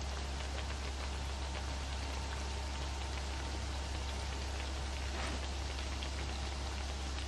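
Breadcrumb-coated bread pockets frying in hot oil in a pan: a steady sizzle with fine crackles, over a steady low hum.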